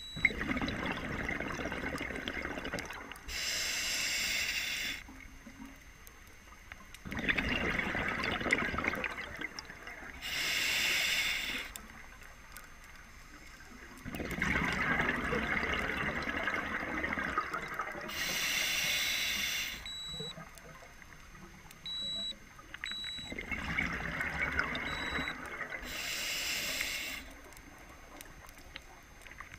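Scuba diver breathing through a regulator underwater: four breaths in a steady rhythm, each a short high hiss of inhalation through the demand valve and a longer rushing gurgle of exhaled bubbles.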